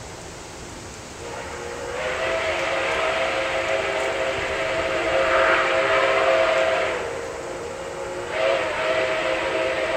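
Steam chime whistle of Nickel Plate 765, a 2-8-4 Berkshire steam locomotive, sounding several tones at once as it approaches a grade crossing. One long blast swells in about a second and a half in and fades around seven seconds; a second blast starts near the end.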